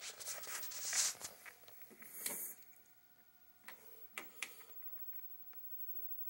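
Faint rustling and handling noise, then a few soft clicks about four seconds in as buttons on a TV remote are pressed to bring up the volume.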